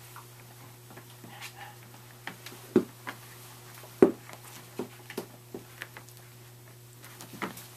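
Scottish terrier puppies playing with toys: scattered light taps and knocks, with two louder knocks about three and four seconds in, over a steady low hum.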